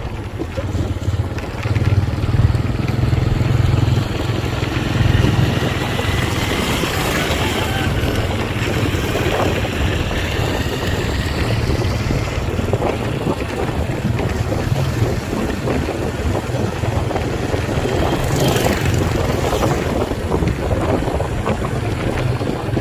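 Vehicle running on the road, a steady low engine and road rumble with wind buffeting the microphone.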